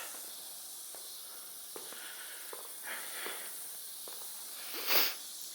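Steady hiss of background noise with a few faint light knocks, a short soft rush about three seconds in, and a louder breath-like rush near the end.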